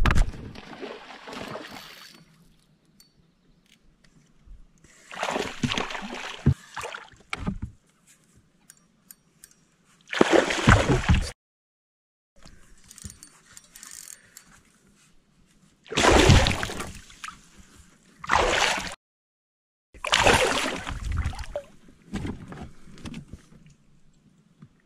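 Several bursts of water splashing a few seconds apart as a hooked smallmouth bass thrashes at the surface beside a canoe and is landed.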